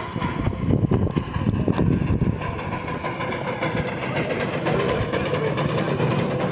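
A 7¼ inch gauge miniature steam locomotive chuffing as it pulls away with a train of passenger cars, with steam hissing out around its cylinders. The exhaust beats come about three a second and are loudest in the first couple of seconds, then give way to a steadier running sound.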